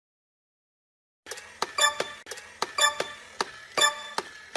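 About a second and a half of dead silence, then an even, clock-like ticking: a ringing pitched tick about once a second with lighter clicks in between.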